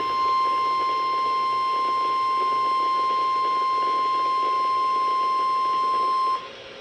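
NOAA Weather Radio warning alarm tone (1050 Hz): one steady high tone over radio hiss, cutting off sharply shortly before the end. The tone signals that a severe thunderstorm warning is about to be read.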